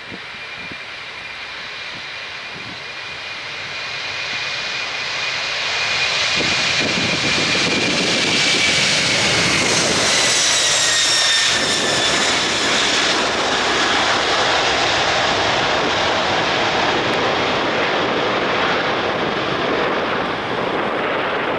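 The four jet engines of a Boeing 747-400 freighter at takeoff thrust. The roar grows louder as the aircraft rolls and lifts off, and a high fan whine drops in pitch as it passes by, then the roar holds steady as it climbs away.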